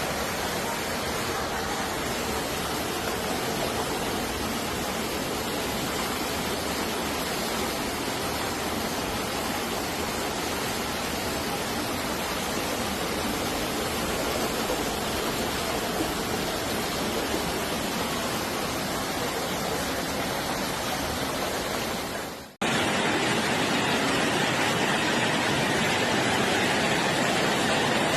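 Steady rushing of floodwater, a dense, even noise. About three-quarters of the way through it fades out for a moment and comes back slightly louder and hissier, as another stretch of rushing water.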